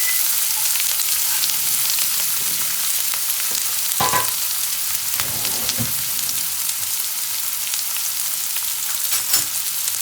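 Onions sizzling as they fry in hot sesame oil in a kadai, being stirred, with a few short scrapes or knocks of the spoon against the pan about four seconds in, a little after, and near the end.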